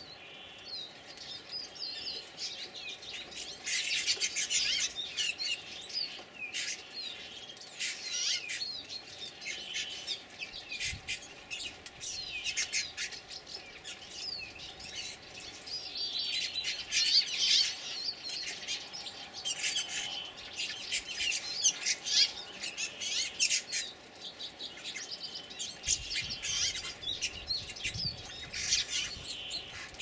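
A flock of bramblings calling noisily, with many short overlapping chirps and wheezy calls that come in busier and quieter waves.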